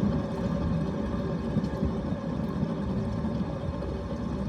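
Steady low humming rumble from a worn rear wheel hub bearing on a 2022 Nissan Sentra, the noise of a bearing that needs replacing.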